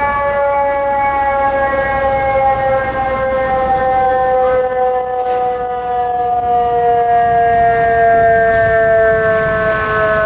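Fire truck's mechanical siren winding down: one long tone with a slowly falling pitch.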